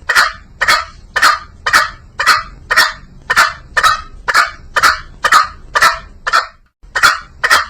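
Green junglefowl calling: short harsh calls repeated evenly about twice a second, with one brief pause near the end.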